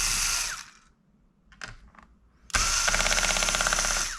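Small electric screwdriver running in two bursts to back out laptop case screws. The first stops about half a second in, and the second, longer one starts after a short pause and has a fast, even pulsing.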